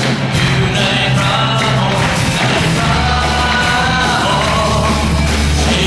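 Live contemporary worship song: a lead singer at a microphone backed by a band, with steady bass notes underneath.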